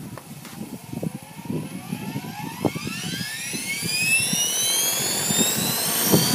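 Align T-Rex 450 electric RC helicopter spooling up: the brushless motor and rotor head whine rising steadily in pitch and getting louder. Irregular low thumps run underneath.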